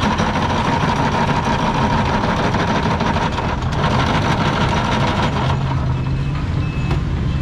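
Electric ice-shaving machine running, its blade grinding a block of ice into shaved ice for gola ganda, with a steady whine; it cuts off about five and a half seconds in, leaving a low hum and short repeated beeps.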